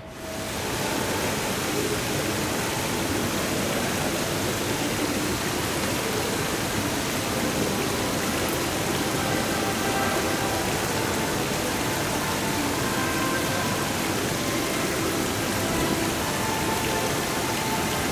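Steady, even hiss of a large airport terminal hall's air-handling and room ambience, with faint, scattered traces of distant voices.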